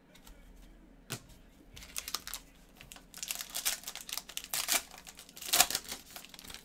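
A foil trading-card pack wrapper is crinkled and torn open by hand. A dense run of sharp crackles builds through the middle, with the loudest rip a little past five seconds in.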